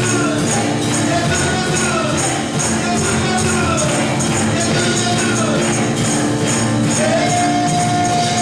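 Live worship band music: a sung melody over bass, drums and keyboard, with jingling high percussion keeping a steady beat. The lead voice holds one long note near the end.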